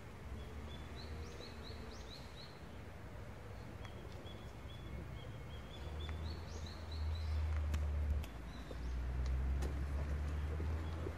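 A small bird singing two bouts of short, high, repeated chirping notes, over a low rumble that swells to the loudest sound in the second half, with a few sharp clicks near the end.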